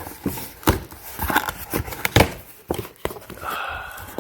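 A package being opened by hand, picked at with a fingernail: irregular clicks, taps and rustles of packaging, with a brief scraping or peeling sound near the end.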